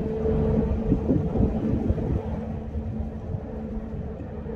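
Steady low hum of a large ferry's engines that fades out about halfway through, over a low rumble of wind on the microphone.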